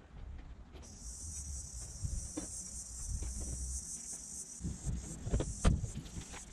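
Steady high-pitched chorus of insects, with a low rumble of wind on the microphone. Near the end come a few heavy footsteps close by.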